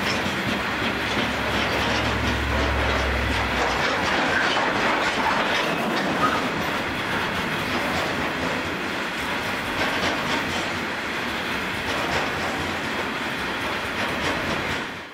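Coal train passing: the EMD 16-710 two-stroke diesel engines of Pacific National 90 class locomotives run with a low drone for the first few seconds, then coal hopper wagons roll by with a steady wheel rumble and clickety-clack. The sound fades out at the very end.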